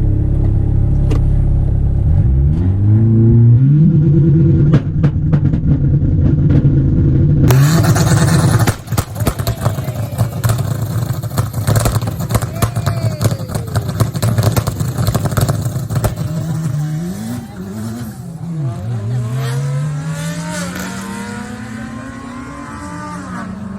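Car engines at a drag strip: a steady engine note that revs up about three seconds in, then, after an abrupt change, a louder, noisier stretch of cars accelerating hard, with the engine pitch climbing and dropping back several times near the end, as on gear changes.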